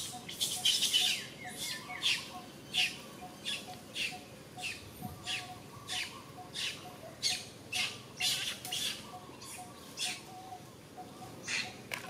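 Birds calling outdoors: short, high chirping calls repeat about twice a second, over a faint, even series of lower notes.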